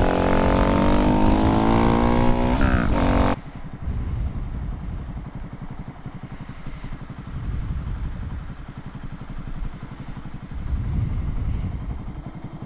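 Honda Grom's single-cylinder engine, fitted with a big bore kit, pulling with a steadily rising pitch as the bike accelerates. About three seconds in the sound drops abruptly to a low, pulsing idle with the bike at a stop.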